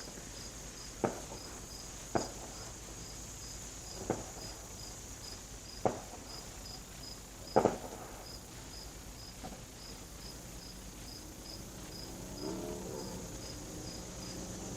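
Crickets and other evening insects chirping: a steady high trill with a regular pulsing chirp a few times a second. Five sharp knocks come about every one to two seconds in the first half and are the loudest sounds, and near the end a faint, lower pitched sound rises and falls.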